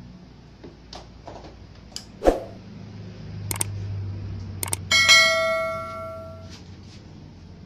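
Scattered clicks and knocks of tools being handled on a workbench. About five seconds in, a metal object is struck and rings like a bell, fading over a second or so.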